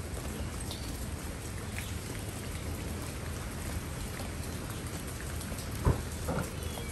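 Steady rain falling on leafy ground plants and soil, an even patter throughout. One sharp, louder tap stands out near the end, with a smaller one just after.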